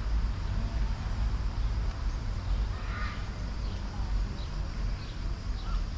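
A bird calling once about three seconds in, followed by a few short, faint chirps, over a steady low rumble.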